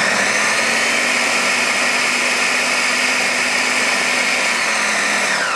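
Ninja blender motor running steadily, churning frozen bananas and berries with a little coconut milk into a thick ice-cream mix. Its whine begins to fall near the end as it is switched off and spins down.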